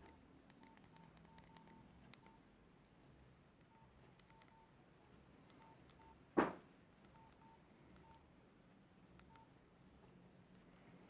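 Nokia 5130 XpressMusic keypad tones: short beeps of one pitch at uneven intervals as the keys are pressed, with faint key clicks. A single loud sharp knock comes about six seconds in.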